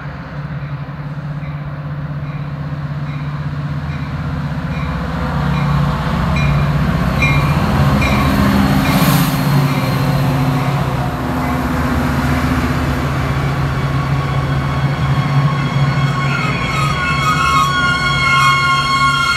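Metra commuter train led by F40PH diesel locomotive 175 approaching and passing close by. Its engine drone grows louder to a peak about nine seconds in, with a bell dinging at a slow steady beat during the approach. As the bilevel coaches roll past near the end, several high wavering squeals rise over the wheel noise, typical of the train's brakes.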